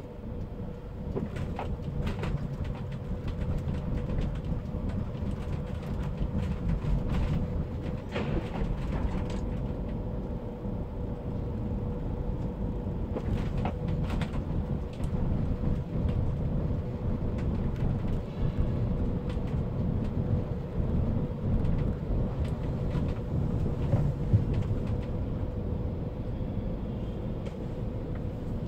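Car engine and tyre noise heard from inside the cabin while driving: a steady low rumble with a faint steady hum and scattered light knocks.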